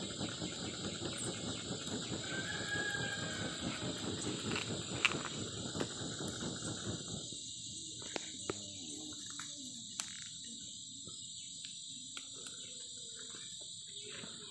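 A large round woven hat waved fast to fan a wood cooking fire, giving a rapid run of whooshing air gusts that stops about seven seconds in. After that, a few sharp pops from the burning wood stand out over the steady chirring of insects.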